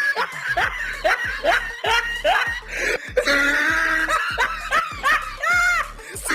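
Cartoonish meme laugh sound effect: a string of 'ha' syllables, each rising in pitch, then a quick run of high squeaky laughs near the end, over a music track with a steady low beat.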